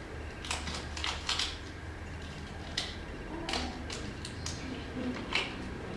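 Hands handling protective gear, gloves and a face mask, making a scattered series of short rustles and clicks over a low steady hum.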